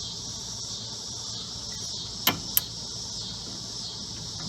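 Steady, high insect chirring in the background, broken a little past the middle by two sharp clicks about a third of a second apart.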